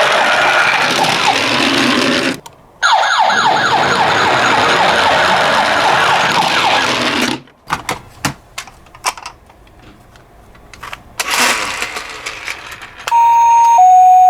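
Toy ambulance minicar's siren sounding: a loud rushing noise with fast repeated rising wails, cut off briefly once and stopping about halfway. A few clicks and knocks follow. Near the end, a two-tone hi-lo ambulance siren starts, two steady tones alternating.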